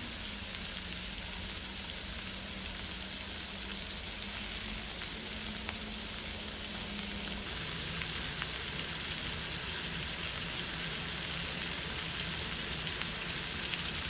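Food sizzling and crackling in a hot frying pan, steady throughout, over a steady low hum that drops slightly in pitch about halfway through.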